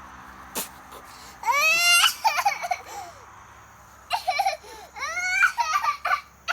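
A high-pitched voice squealing and whining in two bouts, the pitch sliding sharply up at the start of the first.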